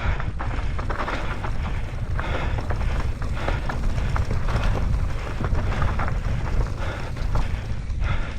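Mountain bike riding fast down a rough trail: steady wind buffeting on the microphone, with frequent irregular clatter and knocks from the bike over rocks and loose ground.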